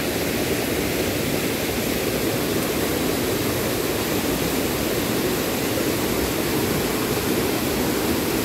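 Steady, even rush of flowing water with a hiss over it, unbroken throughout.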